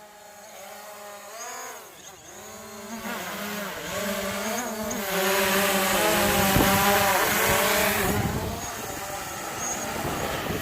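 Quadcopter drone flying overhead, its propellers whining and wavering up and down in pitch as it circles. It gets louder, with a rush of hiss, from about five to eight seconds in, then eases off.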